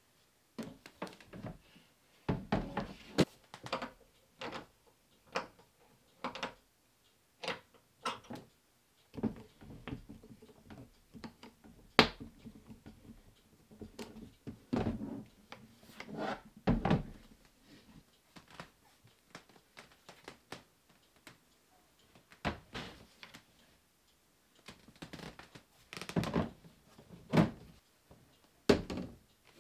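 Irregular knocks, clicks and thunks of a white plastic flap-door shoe cabinet being handled: its flap worked, rare-earth cup magnets fixed to its back panel, and the cabinet set against the steel side of a washing machine. The loudest sharp clacks come near the end and about halfway.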